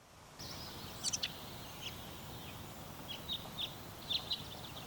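Small wild birds chirping in a forest, with short high calls every second or so, some falling in pitch, over a steady outdoor background hiss. The sound fades in at the start.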